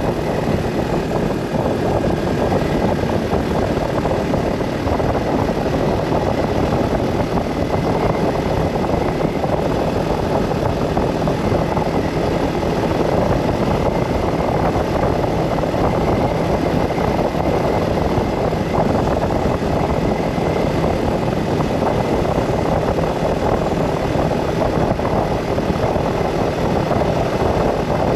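Steady road noise of a car driving at an even speed: tyre rumble and engine running without change.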